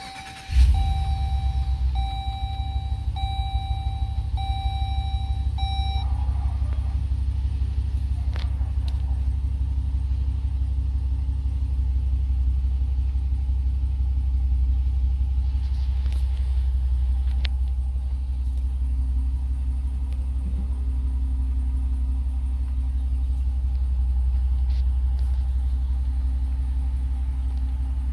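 2022 Jeep Wagoneer's 5.7-litre V8 push-button started from inside the cabin: it catches with a brief flare about half a second in, then settles into a steady idle rumble. A dashboard warning chime repeats alongside it until about six seconds in.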